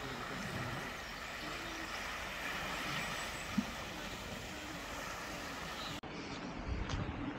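Steady outdoor hiss of wind and choppy water by the sea. About six seconds in it cuts to a duller stretch with low thumps and a click.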